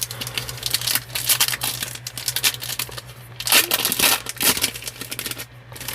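Foil wrapper of a trading-card pack crinkling and tearing as it is ripped open, with bursts of crackling.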